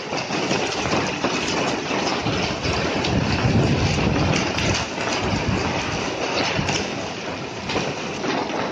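Heavy rain mixed with hail falling, a dense steady hiss with many fine ticks of hailstones striking. A low rumble swells about three to four seconds in.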